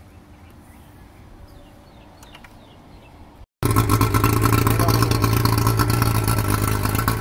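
Faint background with a few light clicks. After about three and a half seconds it cuts to a Yamaha 115 hp two-stroke outboard running steadily and loudly out of the water, fed cooling water by a garden hose.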